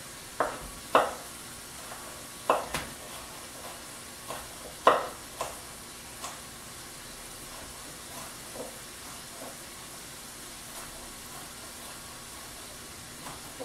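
Chef's knife chopping bell pepper on a wooden cutting board: irregular knocks, loudest in the first five seconds and fainter later, over the steady sizzle of sausage frying in a skillet.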